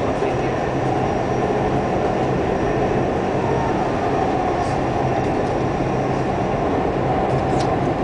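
Dubai Metro train running along its elevated track, heard from inside the carriage: a steady rumble and low hum. A couple of faint, brief high squeaks come about halfway through and near the end.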